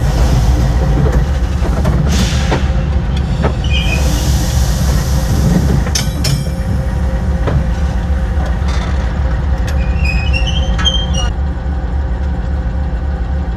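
Diesel locomotive rolling slowly along yard track, heard at its coupler: a steady low rumble of engine and wheels with sharp clicks over the rail joints. Brief high squeals from the wheels come about three seconds in and again near the eleventh second as it slows.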